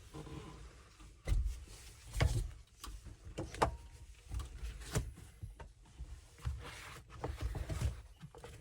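Seatbelt retractor and mounting hardware being handled and held against the vehicle's interior: irregular knocks and clicks, a few at a time, with soft rustling between them.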